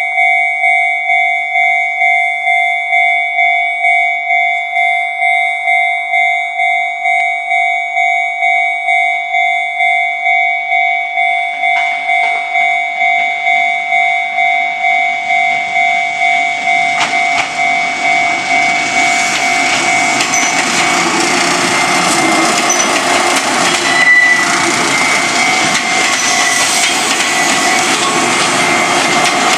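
Japanese level-crossing alarm ringing its electronic bell about twice a second. After about 16 s the running noise of a passing Fuji Kyuko train builds up and drowns the bell out.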